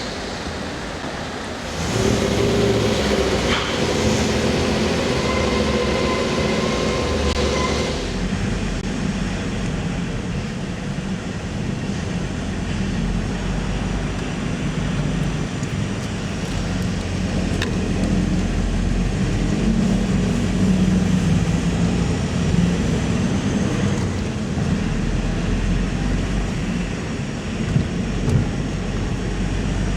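Car driving off a ferry's vehicle deck: a steady low engine and tyre rumble. From about two to eight seconds in it is louder, with a steady whining hum over it, and a couple of short knocks come near the end.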